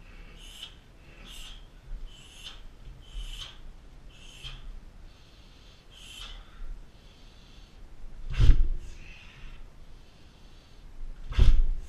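Short sharp exhalations from a fighter, about one every two-thirds of a second for the first few seconds, then two heavy thuds about three seconds apart as a sledgehammer strikes a steel-belted car tyre target.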